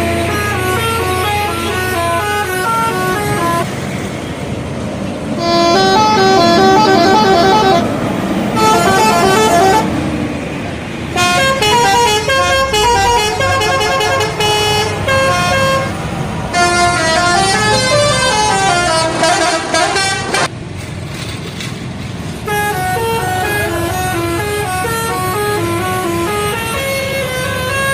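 Indonesian bus 'telolet' musical horns playing quick, stepped multi-note melodies one after another, several horn tones sounding together. One passage about two-thirds of the way through wavers up and down like a siren.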